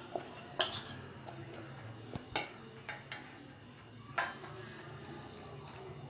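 A steel spoon stirring thick gram-flour batter in a steel pot, clinking sharply against the pot about four times. In the second half, water is poured into the batter from a small steel cup.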